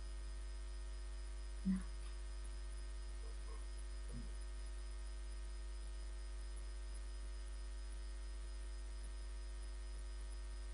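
Steady low electrical mains hum, with one brief short sound a little under two seconds in and a few faint blips around three to four seconds.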